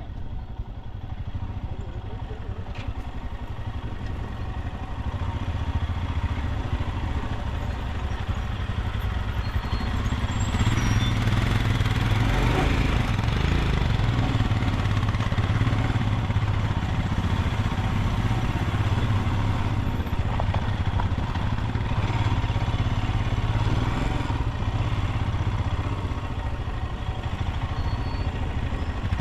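Royal Enfield Himalayan 411 motorcycle's single-cylinder engine running steadily on the move, louder from about ten seconds in.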